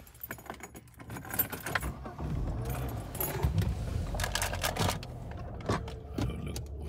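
Close rustling and clicking of a phone being handled and moved around inside a car, over a low rumble that comes up about two seconds in.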